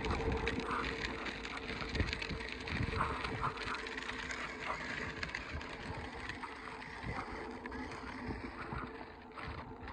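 Child's battery-powered ride-on toy motorcycle running, its small electric motor humming steadily as its plastic wheels roll over gravel.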